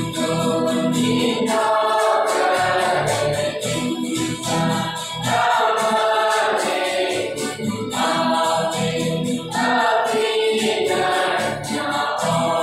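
A church choir singing a gospel song, accompanied by strummed acoustic guitars.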